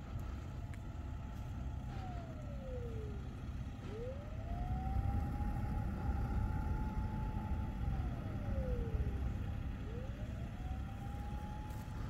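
A car driving slowly over a concrete surface: a low rumble of engine and tyres that grows a little louder about four seconds in. Over it a distant siren wails in slow cycles, holding one pitch for a few seconds, falling away, then rising again, twice.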